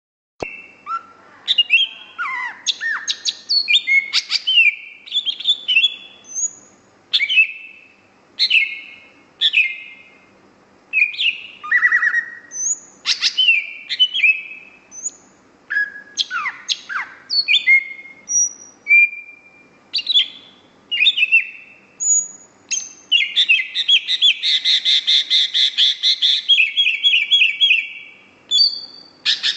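Cucak hijau (greater green leafbird) singing without pause: a long string of short, varied whistled notes and quick up-and-down sweeps, with a long, fast chattering trill near the end.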